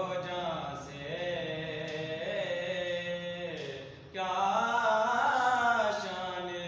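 A man chanting a slow, melodic recitation in long held notes, swelling louder for about two seconds in the second half.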